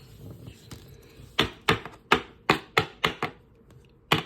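Trading cards being handled and tapped down on a table: a quick run of about seven sharp taps, roughly three a second, then one more near the end.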